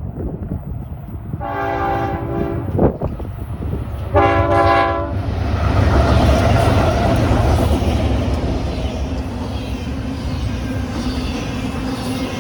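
Train horn sounding two blasts, a chord of several steady tones, followed by the locomotive and cars rumbling past. Heavy wind buffets the microphone throughout.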